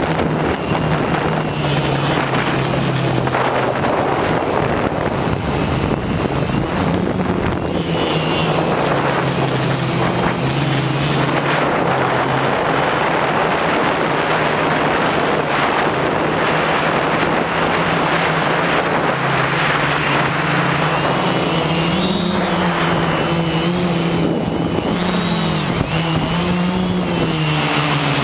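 Multirotor drone's electric motors and propellers whirring, heard close up from the onboard camera: a steady hum under a rushing noise, its pitch wavering up and down with the throttle in the last few seconds.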